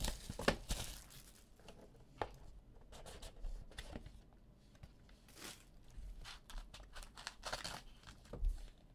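Trading-card pack wrappers being torn open and crinkled: scattered short crackles and ticks, with a louder snap about half a second in and another near the end.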